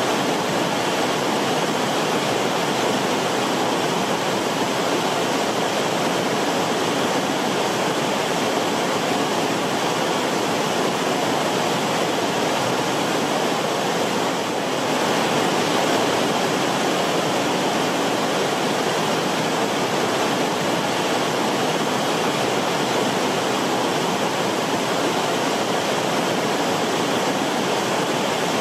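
Rushing river water, a steady, even rush with a slight dip and swell about halfway through.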